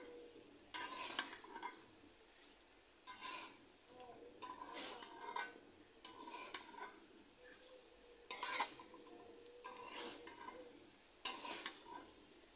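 Metal spatula scraping and stirring soya chunks and potatoes around a metal kadai, in strokes every second or two, over a light sizzle as they fry down in the spice paste.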